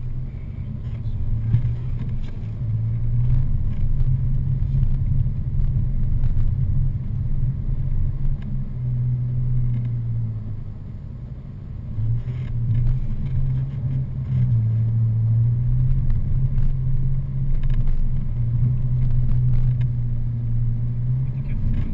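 Mitsubishi 4x4's engine heard from inside the cabin while driving over soft sand dunes, a low steady drone that swells and eases with the throttle, dropping back for a moment about halfway through before picking up again.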